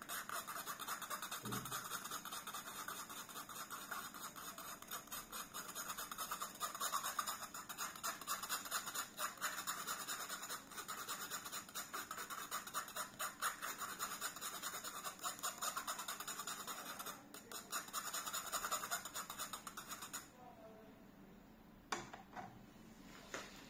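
A utensil scraping and stirring pineapple pulp around a stainless-steel mesh strainer, a quick continuous scratching as the juice is pressed through the mesh. It stops about 20 seconds in and is followed by two light clinks as the strainer is set down on the jug.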